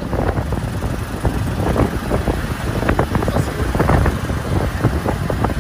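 Wind buffeting the microphone over a low road and traffic rumble while riding on a moving motorbike through city traffic.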